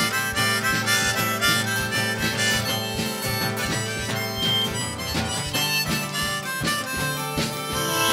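Harmonica solo played from a neck rack over a strummed acoustic guitar, an instrumental break between sung verses.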